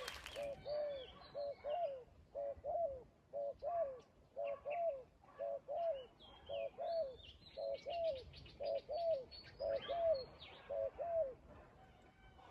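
Spotted dove cooing: a long, rapid run of repeated two-note coos that stops about eleven seconds in, with small birds chirping thinly over it.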